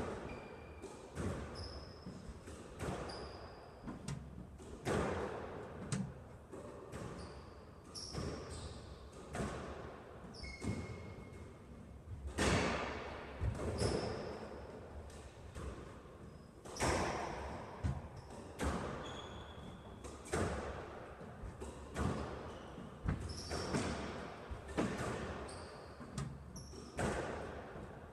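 A squash rally: the ball cracks off rackets and the court walls about once a second, each hit echoing in the court, with short high squeaks of court shoes between the hits.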